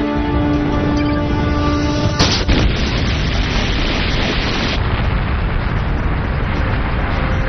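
Film score with held tones, then about two seconds in a sudden loud boom that gives way to a continuous heavy rumble, typical of an eruption or explosion sound effect.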